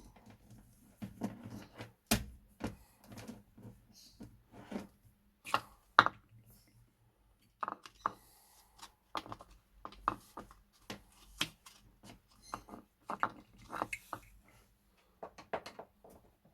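Handling noises: irregular taps, clicks and knocks of objects being picked up, worked on and set down on a hard surface, with sharper knocks about 2 and 6 seconds in.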